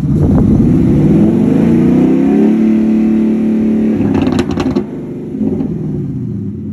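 Ford Mustang GT's 5.0 V8 revved up quickly, held at high revs for a couple of seconds, then let fall back, with a smaller second blip near the end. The exhaust sounds muffled because the catalytic converters have melted. A few sharp clicks come as the revs drop.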